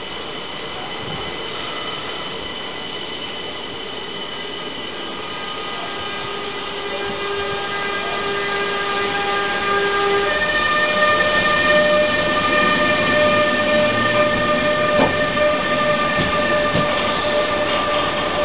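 SNCB class 28 electric locomotive hauling ICRm coaches rolls past. It gives a whine of several steady high tones that step up in pitch about ten seconds in, over a rumble of wheels that grows louder as the coaches pass.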